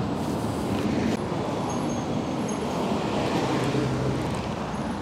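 Street traffic: a steady rush of passing cars, fading a little near the end.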